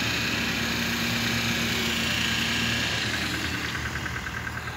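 Off-road 4x4 engine running as the vehicle drives across a muddy field, a steady hum that fades away about three seconds in.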